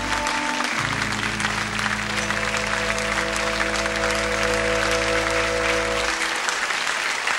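Closing theme music played over steady studio audience applause; the music ends on a long held chord about six seconds in, leaving the applause alone.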